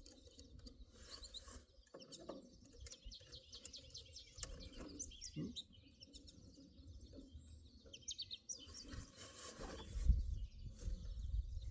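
Small songbirds chirping and twittering repeatedly in short, quick calls, with a few faint clicks and a low rumble that swells near the end.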